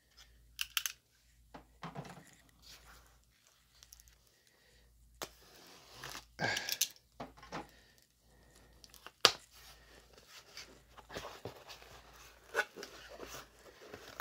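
A mailer envelope being torn open and its contents handled: irregular tearing, rustling and crinkling, with a sharp snap about nine seconds in.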